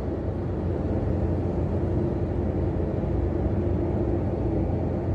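Steady road and engine noise inside the cabin of a vehicle cruising on an expressway: a constant low rumble with a faint hum.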